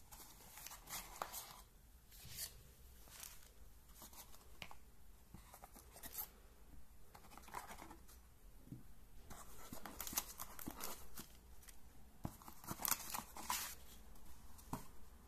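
Unpacking noises: a small cardboard box and a folded paper manual being handled and rustled, with scattered light clicks and knocks, busier in the second half.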